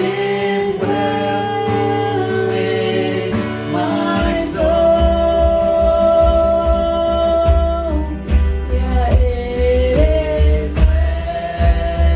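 Worship song with long, held sung notes over guitar accompaniment; a bass line comes in about four seconds in.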